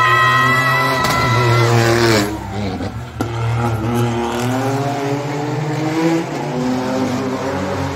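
Car engine revving hard during a street race: a high, held engine note for about two seconds, then the car accelerating away, its pitch climbing and falling back with each gear change, several times over.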